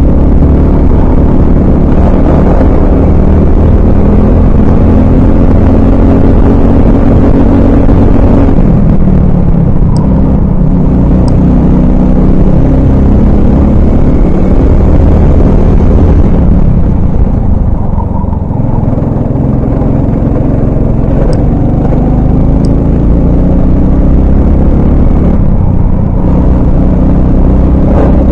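Honda 390 single-cylinder four-stroke kart engine at racing speed, heard onboard, its pitch falling and climbing again several times with the throttle through the lap. The loudness dips briefly just past halfway before the engine pulls back up.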